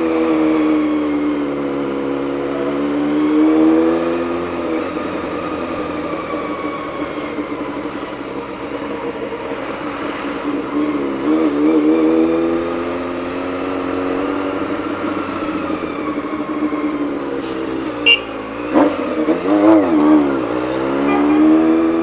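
Honda CBX 750's inline-four engine running under way, its pitch rising and falling slowly as the throttle opens and eases off. A few sharp clicks come about four-fifths of the way through.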